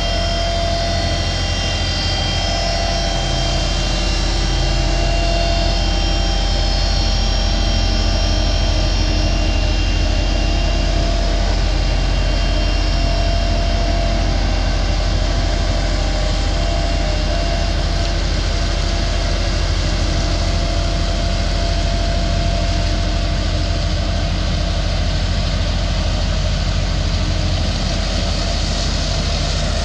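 Hamm 3410 single-drum road roller's diesel engine running steadily at close range with a deep, even rumble. A few steady high tones sound over it and fade out about ten seconds in.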